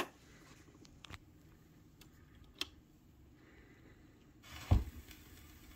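Turntable stylus at the lead-in of a shellac 78 rpm record: a few faint clicks, then a low thump about three-quarters of the way through as steady surface hiss starts, before the music begins.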